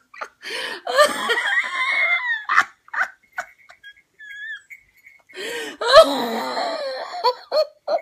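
A woman laughing hard in two long fits, with short gasping bursts and a faint thin high sound in the pause between them.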